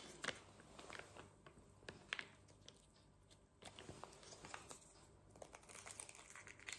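Faint crinkling, tearing and small clicks of plastic packaging being handled: a small plastic spoon is unwrapped and the lid of a snack cup is peeled back.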